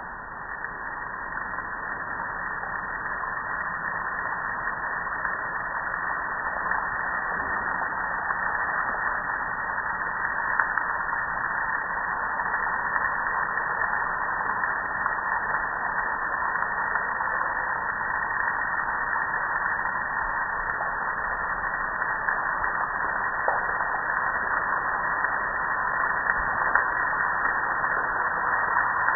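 Garden hose spray nozzle showering water over a gas grill to rinse the soap off: a steady hiss of spray splashing on the metal and patio, building up over the first few seconds and then holding.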